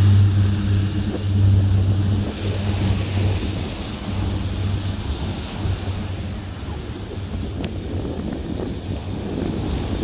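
The DHC-6 Twin Otter seaplane's twin turboprops make a low propeller drone as it climbs away after takeoff. The hum fades over the first few seconds and gives way to wind on the microphone and small surf breaking on the beach.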